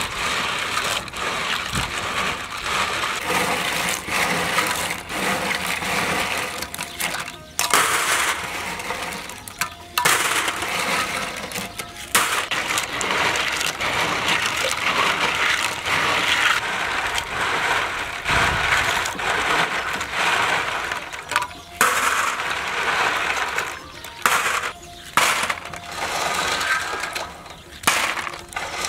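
Live clams being scrubbed by hand in a stainless steel bowl of water, their shells rattling against each other and the bowl. Near the end, clams drop into a steel tray with a clatter.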